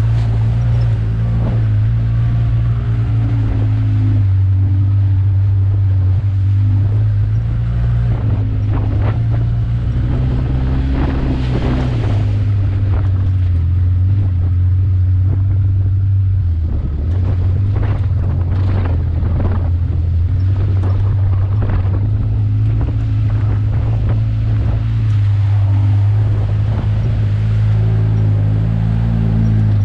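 ATV engine running steadily at low trail speed, its pitch easing down and up a little as the throttle changes. Scattered short clatters and splashes come from the tires working through mud and over rocks, with some wind on the microphone.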